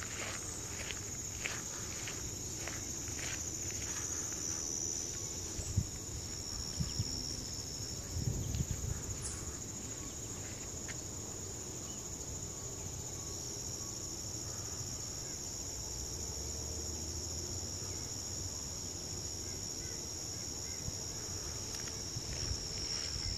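Steady high-pitched chorus of late-summer insects. Footsteps crunch on a gravel path about twice a second for the first few seconds, and there are a few soft low bumps near the middle.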